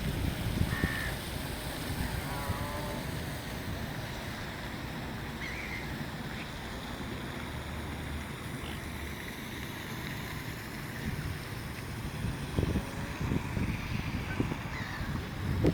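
Wind buffeting the microphone in uneven gusts, heavier near the end, with a few bird calls over it. One is a harsh call with several overtones about two and a half seconds in. Shorter, higher calls come at about one and six seconds.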